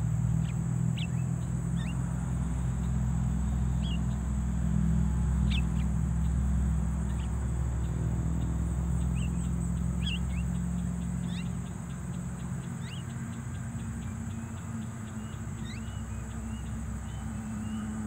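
Mynas giving scattered short chirps and whistles, with a run of rapid, evenly spaced ticks through the second half, over a steady low hum.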